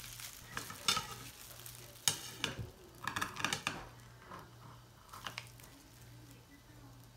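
Kitchen scissors snipping through a crisp pan-fried instant-noodle cake, giving clusters of crunchy crackles, the longest run about two to three and a half seconds in.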